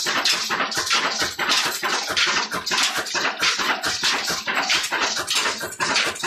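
Belt-driven chakki flour mill running off an old Ruston Hornsby diesel engine: the engine's beat, the flat belts on their pulleys and the overhead line shaft make a loud, even, rapid rhythm of about four beats a second.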